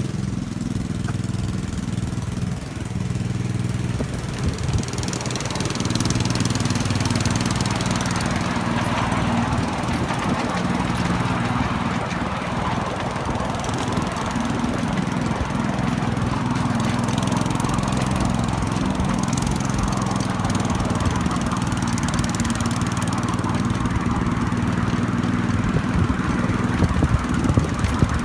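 Small engine of a 7¼ inch gauge miniature railway locomotive running steadily as the train gets under way and travels along the track, with the rumble of wheels on rail beneath it; it gets a little louder about six seconds in.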